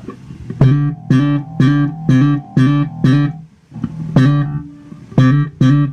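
Electric bass guitar in passive mode played slap style through a Hikari compressor pedal: sharp slapped and popped notes, about two a second, with a short break in the middle. The compressor is evening out the boomy pops.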